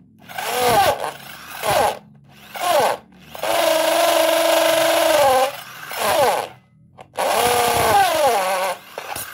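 Corded electric drill with a large hole saw, switched on and off in six short bursts. Each time the motor's whine rises as it spins up and falls as it runs down, and the saw teeth scrape into the wooden board. The longest run lasts about two seconds, in the middle.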